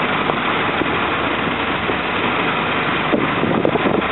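Boat engine running steadily, heard as a loud even drone.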